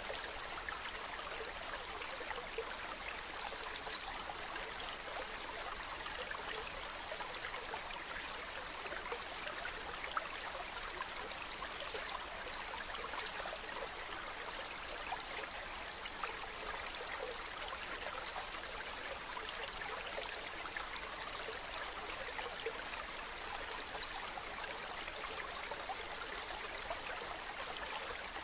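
Mountain stream running over stones: a steady rushing and splashing of water, even throughout.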